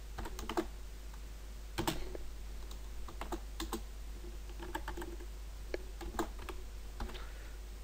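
Typing on a computer keyboard: irregular keystrokes, a few at a time with short pauses, over a low steady hum.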